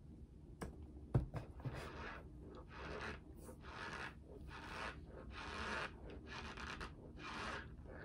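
Cornstarch being chewed in the mouth: a steady, rhythmic squeaky crunch, about one chew every half second or so. A single sharp knock a little over a second in.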